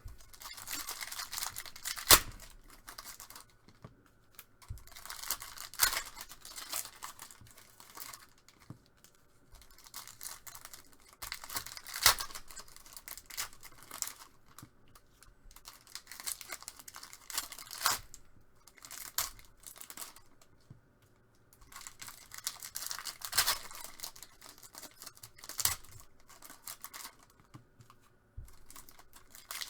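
Foil trading-card pack wrappers being torn open and crinkled in repeated bouts every few seconds, with a few sharp clicks between them.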